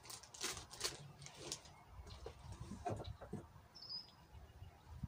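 Faint rustling and crinkling of plastic packaging as gear is handled, with a few soft knocks and one brief high chirp a little before four seconds in.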